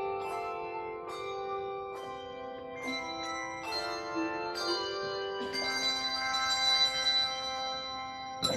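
A group of handbells played as a small handbell choir, ringing a slow melody of struck notes that overlap and sustain into chords. A louder stroke comes right at the end.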